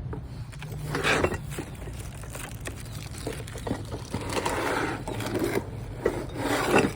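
Parts of a sports rebounder being handled and pulled out of their packaging: irregular rubbing and scraping, loudest about a second in and again near the end.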